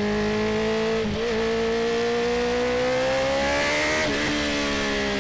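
2019 Honda CB650R's inline-four engine through an Akrapovic titanium full-system exhaust, pulling steadily as the bike gains speed, its note climbing slowly. The note breaks briefly about a second in and again near the end.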